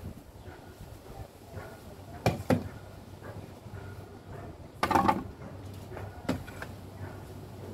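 A few short knocks and clatters from handling quick-release bar clamps and tools on a wooden work table, the loudest a brief cluster about five seconds in.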